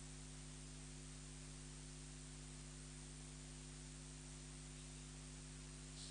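Near silence: a faint steady hiss with a low electrical mains hum.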